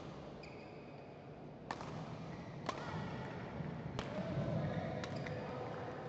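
Badminton rally: four sharp racket-on-shuttlecock hits about a second apart, with a short shoe squeak on the court mat about half a second in.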